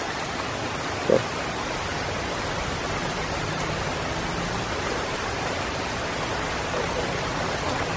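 Steady hiss of heavy rain falling, with one brief sharp knock about a second in.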